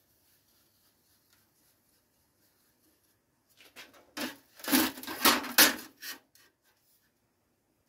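Short rubbing and scraping strokes on sheet steel, about half a dozen in quick succession starting a little over halfway in, after a near-silent start.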